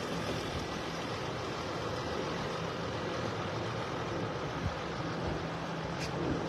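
A vehicle engine running steadily: a low, even hum under steady noise.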